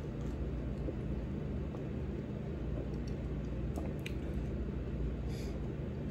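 Steady low hum of room tone, with a few faint clicks near the start and about two thirds of the way through.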